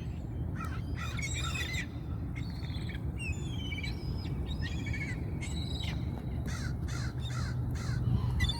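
A flock of seagulls calling: many short, harsh squawking calls from several birds overlapping, over a steady low background rumble. The gulls are hungry.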